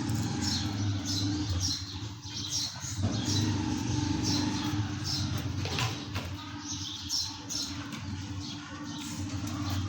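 Modified Yamaha YBR 125's single-cylinder four-stroke engine idling steadily, with birds chirping over it.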